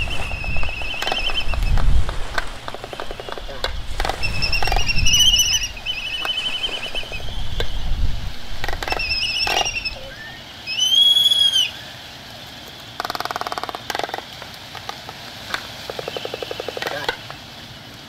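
Gulls calling over surf: repeated short, wavering cries above the low rumble of waves breaking. After about ten seconds the surf drops away, leaving a few separate arched seabird calls, a brief harsh burst and a fast rattle.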